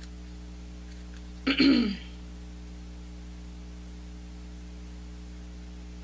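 A woman clears her throat once, briefly, about a second and a half in, over a steady low electrical hum.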